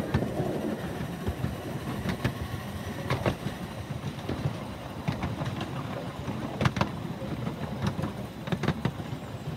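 Miniature railway train running on its track: a steady low rumble of wheels on rail with irregularly spaced sharp clicks and knocks.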